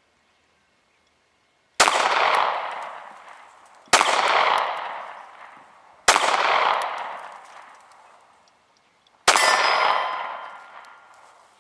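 Four 9mm shots from a Beretta Nano compact pistol, spaced about two seconds apart with a longer gap before the last. Each shot is followed by a long fading echo, and the last one carries a faint ringing tone.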